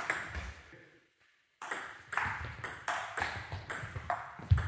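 Table tennis ball clicking off bats and table in a fast rally, about two to three sharp pocks a second. The sound drops out entirely for about half a second a second in, then the rally goes on.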